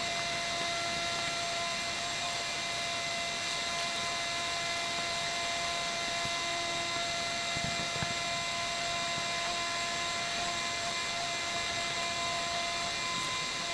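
A small electric motor, likely a power tool, running steadily at constant speed with a high whine.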